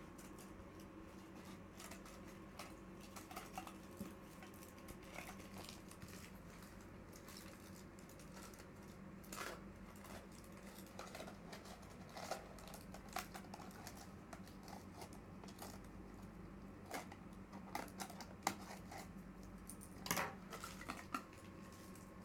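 Scissors snipping and aluminium foil crinkling as loose foil is trimmed from the end of a cardboard tube: faint, scattered clicks and rustles over a low steady hum.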